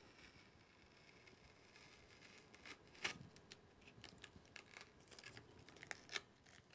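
Masking tape being peeled slowly off watercolour paper: faint crackling ticks and rustles, scattered through the second half, with a slightly louder one about three seconds in.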